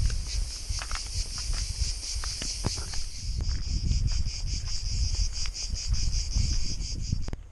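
Cicadas chirring in a steady, finely pulsing drone, over footsteps crunching on a dry dirt and stone path and a low rumble from the moving camera.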